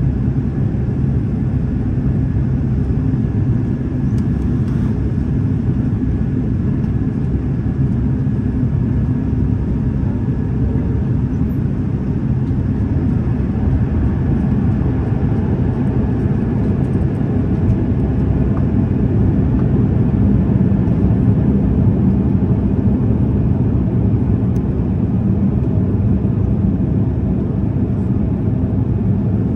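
Airliner cabin noise on approach: a steady low rumble of the engines and the airflow over the fuselage, heard from inside the cabin.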